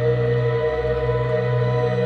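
Background ambient music with steady held notes, no beat.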